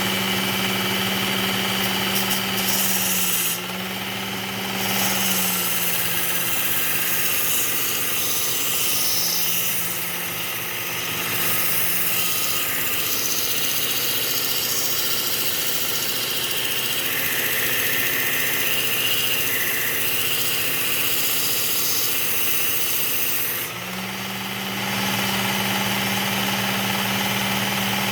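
Work Sharp Ken Onion Elite belt sharpener running with a 120-grit Cubitron belt while a hand pruner blade is ground on it: a steady motor hum under a grinding hiss that swells and fades as the blade is passed across the belt. The hum weakens for most of the middle and comes back to full strength near the end.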